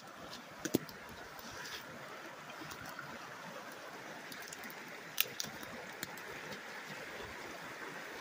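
Shallow mountain river, slowed to a trickle, running over rocks as a steady hiss. A few sharp snaps and rustles of brush and twigs sound underfoot, the loudest about a second in and again about five seconds in.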